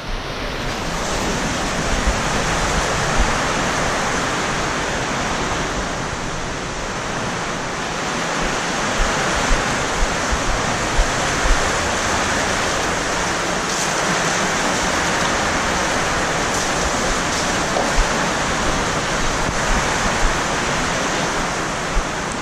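Heavy typhoon rain pouring down: a loud, steady, even rushing noise, with a few light thumps scattered through it.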